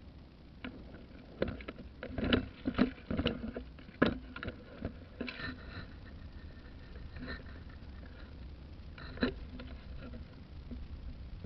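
Irregular sharp knocks and clicks, clustered in the first five seconds with one more about nine seconds in, over a steady low rumble.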